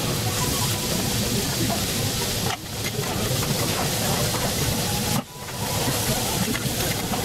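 Kobe beef steak sizzling on a hot steel teppanyaki griddle as it is cut into cubes: a steady hiss that drops out briefly twice.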